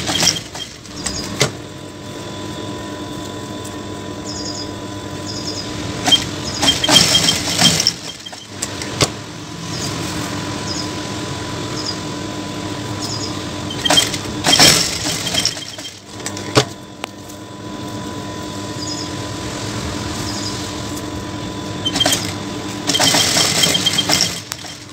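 JACK industrial lockstitch sewing machine: the motor hums steadily, with three short runs of fast stitching about 7, 14 and 23 seconds in as darts are sewn in blouse lining fabric, and a few sharp clicks between runs.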